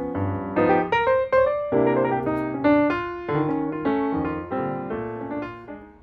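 Background piano music: a gentle melody of struck notes, fading out near the end.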